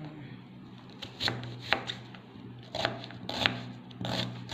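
Kitchen knife slicing a shallot on a plastic cutting board: a string of sharp taps as the blade goes through and strikes the board. The taps start about a second in, several of them in quick pairs, over a steady low hum.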